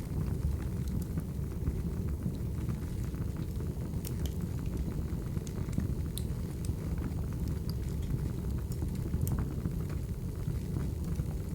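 Wood fire burning: a steady low rumble with sparse sharp crackles and pops scattered through it.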